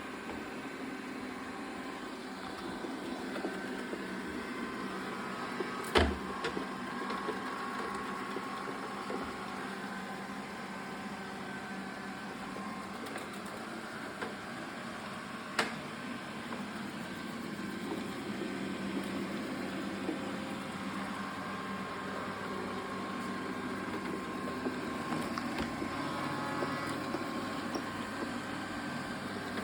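Xiaomi S20 robot vacuum running steadily with the drone of its suction motor while vacuuming and mopping. A sharp knock comes about six seconds in and another about ten seconds later.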